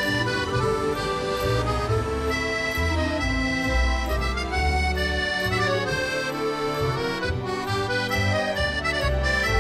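Background accordion music: a lilting melody of held notes over a changing bass line.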